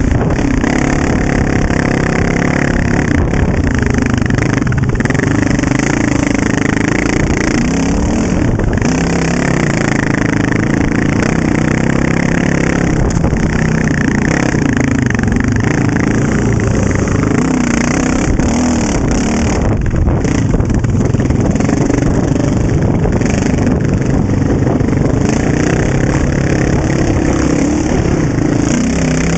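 Honda TRX700XX quad's single-cylinder engine with an FMF exhaust, running under way on a trail, its pitch rising and falling as the throttle is opened and eased off.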